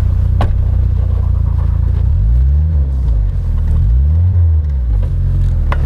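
Suzuki Escudo's engine idling, then revved up and let fall twice in quick succession. A sharp click sounds shortly after the start and another near the end.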